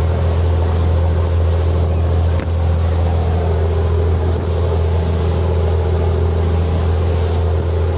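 Small ferry boat's engine running steadily at cruising speed, a constant low drone, over a hiss of wind and rushing water.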